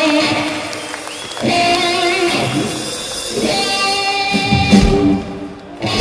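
A blues-rock band playing live through a PA, in phrases of held notes with singing. The sound drops away briefly near the end, then the full band comes back in.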